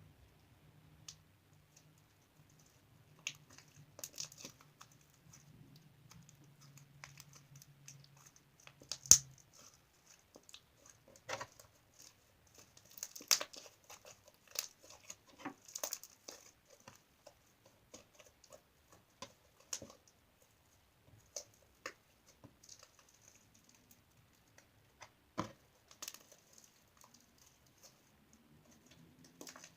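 Slime being handled: scattered sharp clicks, pops and crackles, irregular, the loudest about nine seconds in. A faint low hum runs under the first third.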